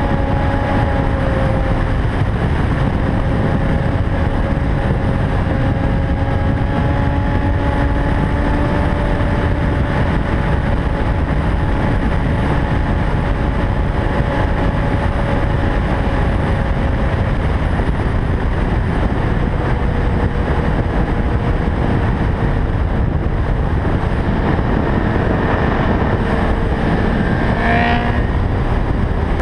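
Heavy wind rush over a helmet-mounted camera at highway speed, with a sport motorcycle's engine running at steady revs underneath. A brief higher chirp comes about a second before the end.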